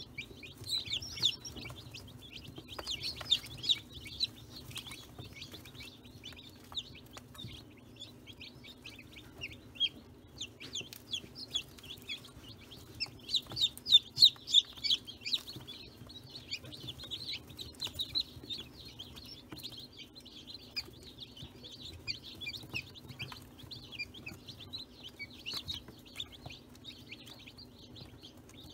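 Many newly hatched chicks peeping continuously, short high chirps overlapping, loudest about halfway through. A steady low hum runs underneath.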